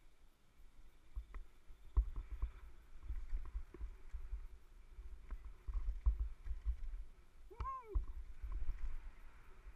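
Wind buffeting a helmet-mounted camera and the rattle of a downhill mountain bike running fast over a dirt trail, with sharp knocks as the wheels hit bumps. About three-quarters of the way through, a short squeal rises and falls in pitch.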